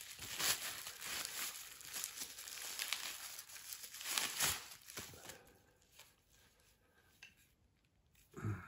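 Clear plastic wrapping crinkling and rustling as a wood turning tool is pulled out of it, busy for about five seconds, then dying down to a few faint clicks.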